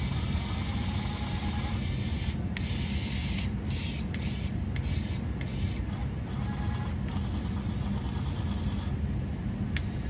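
Small electric motors of a remote-control CAT 297D2 skid steer driving its post-hole auger attachment and lifting or lowering the arm. There is a steady low hum, with stretches of higher whine that start and stop every second or so as the controls are worked.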